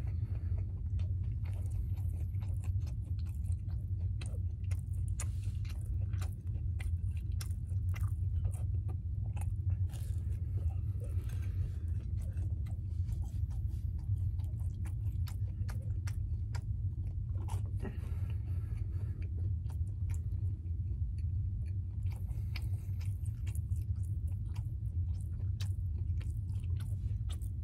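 A person chewing and biting French toast sticks close to the microphone, with many short mouth clicks and smacks. A steady low hum runs underneath.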